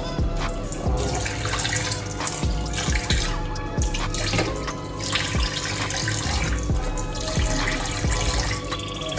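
Tap water running into a kitchen sink while ginger and garlic are washed under it, with small knocks of handling.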